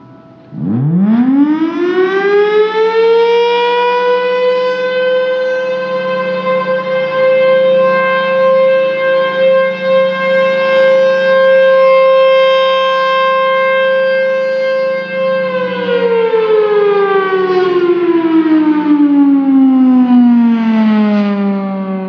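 Federal Signal Thunderbolt 1000 rotating warning siren sounding its test. It starts about half a second in and winds up quickly to a steady high tone, which swells and fades as the horn turns. About two-thirds of the way through it winds down, its pitch falling steadily, over a low steady drone.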